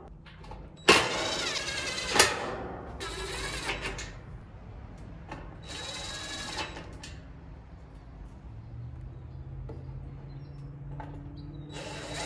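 Cordless impact driver driving screws into the sheet-metal top of an AC condenser, in three short runs that wind up and down in pitch. A low steady hum comes in about two-thirds of the way through.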